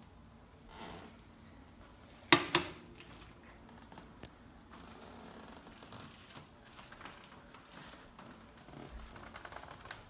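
Paper plates rustling and crinkling as a baby handles them, with two sharp knocks close together about two seconds in.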